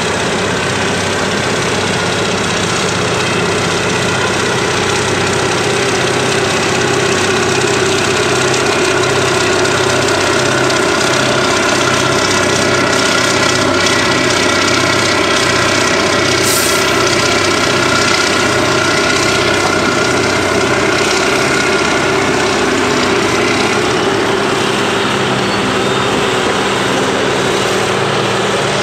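Cat 637 twin-engine scraper's diesel engines running under load as it loads dirt in the cut, a loud, steady heavy-engine drone.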